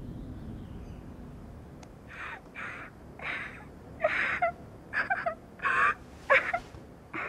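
A young girl's quick, ragged breathing in short rasping gasps that start about two seconds in and grow louder, some catching in her throat. A low rumble fades out at the start.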